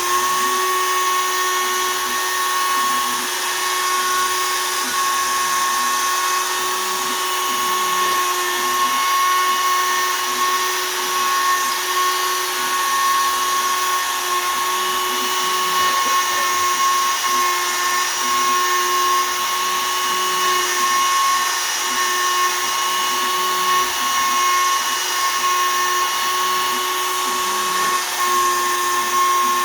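Shapeoko 3 XL CNC router milling poplar with a 1/8 in two-flute downcut spiral bit spinning at 20,000 rpm. It makes a steady high whine over a constant hiss.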